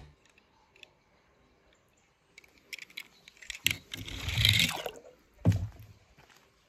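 Near silence at first, then soft handling noise as a die-cast toy car is set down and pushed on a glitter-foam ramp: a few light clicks, a brushing scrape with a dull knock about four seconds in, and another dull thump about a second later.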